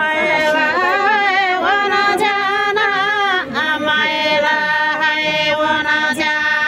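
Women singing a Tamang Fapare selo juhari song together, unaccompanied, in long wavering held notes. There are two phrases, with a brief break about halfway through.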